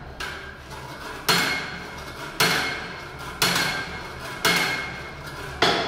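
Hand-cranked wooden model of a Leonardo da Vinci cam-driven trip hammer, its metal hammer head dropping onto the anvil about once a second. There are five sharp, ringing strikes, after a fainter knock at the start.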